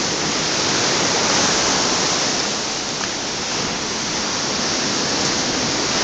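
Small sea waves breaking and washing up a sandy shore in foam: a steady rushing surf that swells and eases a little.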